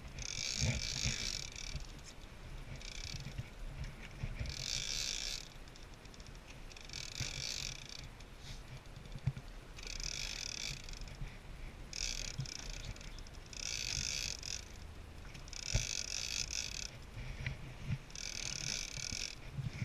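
Big-game fishing reel being cranked in short ratcheting bursts of about a second, every second or two, as line is won back from a hooked tuna, over a low steady hum.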